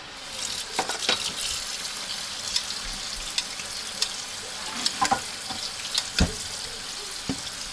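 Tap water running onto boiled vermicelli in a small colander, a steady hiss with a few clinks and knocks from a spoon and the colander.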